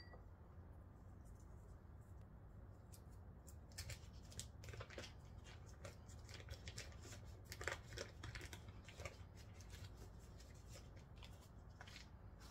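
Faint rustling, crinkling and small clicks of a paper wrapper being peeled off a stick of softened butter, starting a few seconds in, over a low steady room hum.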